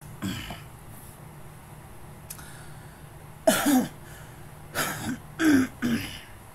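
A man clearing his throat and coughing: one short burst near the start, then a run of four in the last three seconds, the first of these the loudest.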